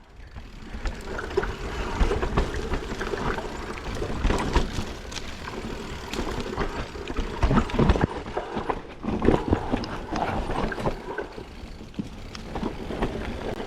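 A 2020 Specialized Enduro mountain bike ridden fast down a rough trail: tyres rolling over dirt and rocks, with a constant clatter of knocks and rattles from the chain and bike over the bumps.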